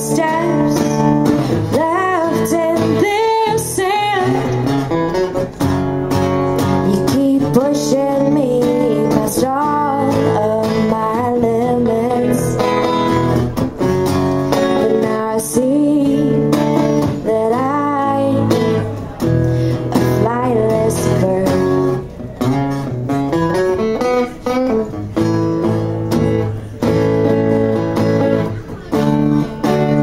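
Acoustic guitar playing with a woman singing over it.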